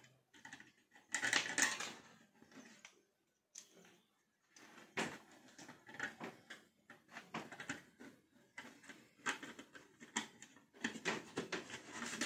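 Irregular clicks, scrapes and light clatter of a screwdriver working the screw terminals of a perforated metal switch-mode power supply, with the metal case and wires being handled. The clicking comes in short spells, loudest about a second in, with a brief pause around three to four seconds in.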